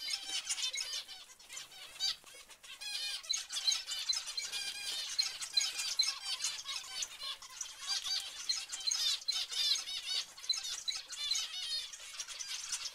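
A flock of zebra finches calling over one another: a dense chatter of short, high chirps, thinning briefly about two seconds in.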